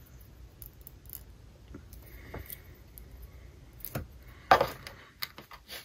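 Small plastic clicks and taps of a Lego minifigure being handled and set down on a hard surface, with a sharper tap about four seconds in and a few more close together near the end.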